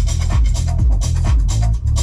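Electronic dance music with a steady beat and heavy bass, played loud through the car's factory audio system (four speakers, four tweeters and a boot-mounted subwoofer) and heard inside the cabin.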